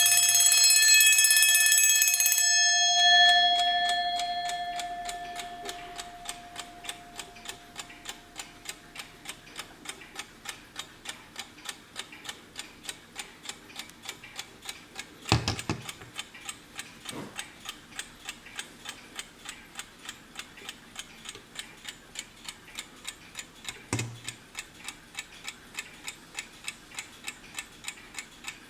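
Wehrle 'Three in One' mechanical alarm clock: its alarm bell rings loudly for the first couple of seconds, stops, and a last ringing tone fades away over several seconds. Then the movement ticks steadily, with a few louder knocks in the middle.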